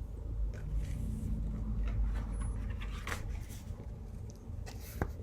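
Paper handling as the pages of an album photo book are turned: soft rustling with a couple of light ticks, over a low rumble.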